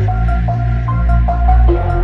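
Background electronic music: a steady, heavy bass under a line of short, bright melodic notes.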